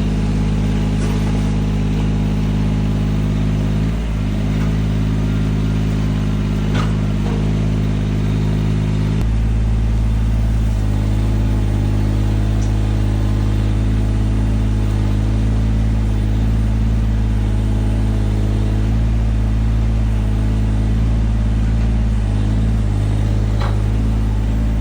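Kobelco SK17SR mini excavator's diesel engine running steadily under hydraulic load, growing heavier and deeper about nine seconds in. A few light knocks sound over it.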